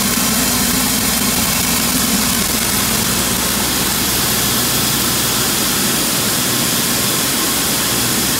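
VMek Element optical color sorter running soybeans at about 1000 bushels an hour: a loud, steady machine noise with a low hum, which weakens about two and a half seconds in.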